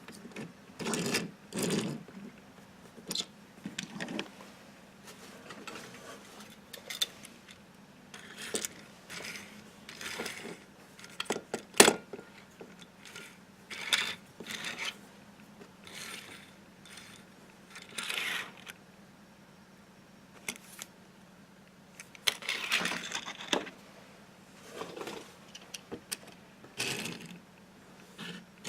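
Small die-cast toy cars and their packaging being handled: irregular rubs, rustles and light clinks, with one sharp click about twelve seconds in. A steady low hum runs underneath.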